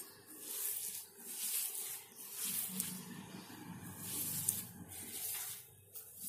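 A hand mashing and kneading crumbly chhena (fresh curd cheese) against a steel plate, softening it for rasgulla: rhythmic rubbing and scraping strokes, about one a second.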